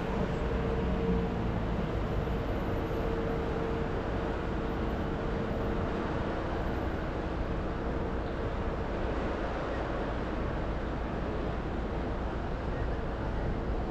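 Busy city street traffic: a steady wash of vehicle noise. A steady hum from a nearby vehicle fades about halfway through.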